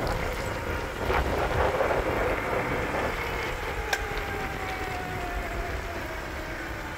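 Two 350-watt, 36-volt geared electric bicycle motors driving the rear wheel under climbing load, with a faint whine that slowly drops in pitch as the bike loses speed on the hill. Steady wind rumble on the microphone lies over it.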